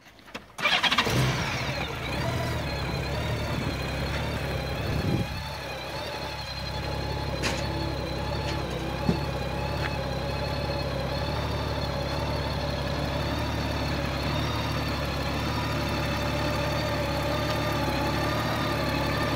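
Honda Gold Wing GL1800's flat-six engine starting about a second in, then idling steadily. A couple of short sharp clicks come midway.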